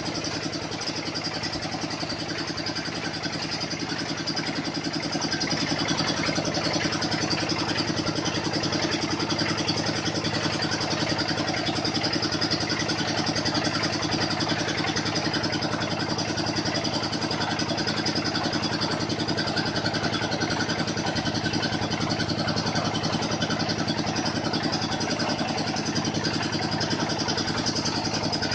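Engine of a water-well drilling machine running steadily with a rapid, even beat, growing a little louder about five seconds in.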